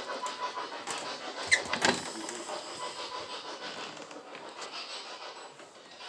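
Handling and movement noise: rustling over a steady hiss, with a couple of sharp clicks or knocks and a brief squeak about one and a half to two seconds in.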